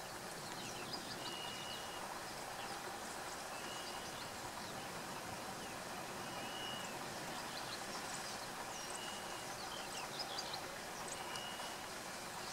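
Outdoor bush ambience of birdsong: a bird repeats a short, steady whistle every two to three seconds, and other birds give brief high chirps, all over an even background hiss.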